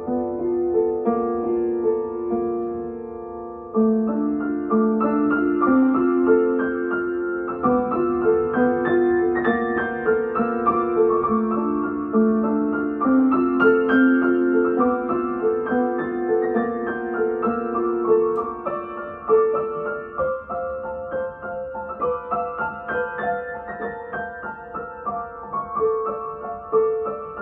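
Upright piano played solo: a steady flow of melody notes over chords, with a louder phrase coming in about four seconds in.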